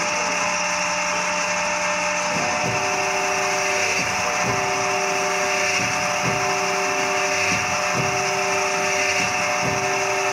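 Vertical cylinder honing machine running with its hone in an engine block's cylinder bore: a steady, loud mechanical whine and hiss, with an extra tone joining about two seconds in.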